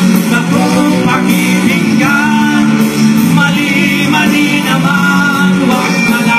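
Live band playing rock music with electric guitar, bass, drums and a male singing voice.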